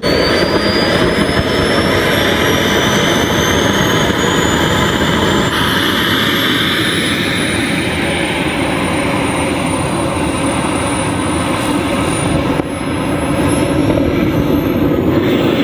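Jet-style aircraft engine noise: a loud, steady rush with a thin high whine that climbs in pitch over the first few seconds, then holds.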